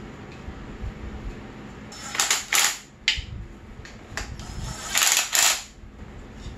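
Cordless drill-driver running a radiator mounting bolt into a dirt-bike frame in two short bursts, about two seconds in and again about five seconds in.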